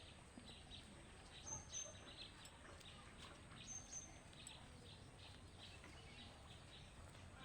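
Faint birdsong: small repeated chirps and a short high two-note whistle heard twice, over quiet outdoor background noise.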